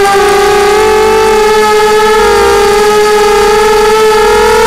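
Lumenier QAV250 quadcopter's brushless motors and propellers whining steadily in flight. The pitch drifts a little with throttle, wavering about two seconds in and edging higher near the end.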